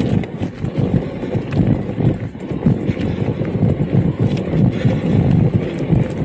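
E-mountain bike rolling over rough ground: a continuous irregular rumble of knocks and rattles from the bike and its camera mount.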